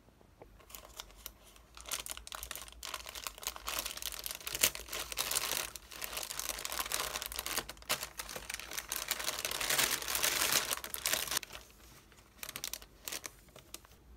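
Plastic mailer bag and the clear plastic bag inside it crinkling and tearing as a parcel is opened by hand. The crinkling stops about eleven seconds in, leaving a few light rustles near the end.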